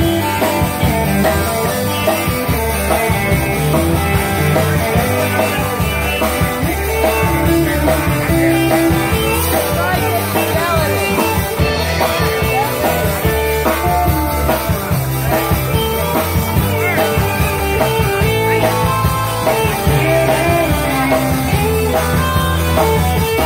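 Live rock band playing an instrumental break: an electric guitar lead with bending notes over drums and the rest of the band.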